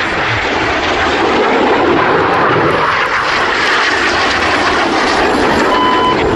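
Jet engine noise from the Red Arrows' BAE Hawk jets flying their display: a loud, steady rushing roar that swells slightly after a second or so.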